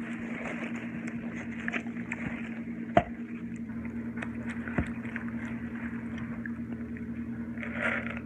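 Close-up chewing and eating sounds, wet and crackly, over a steady low hum, with a sharp click about three seconds in and another near five seconds.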